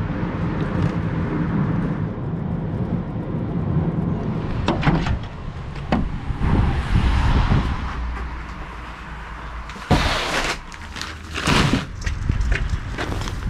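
Volkswagen Caddy Maxi van's engine and road noise inside the cabin while driving, a steady low rumble. About five seconds in it gives way to knocks and the rustle and thud of plastic compost bags being loaded into the van's rear, with two loud rustling bumps near the end.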